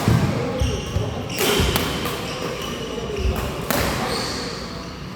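Badminton rally on an indoor court: rackets striking the shuttlecock a few times with sharp cracks, court shoes squeaking briefly on the floor, and footsteps thudding.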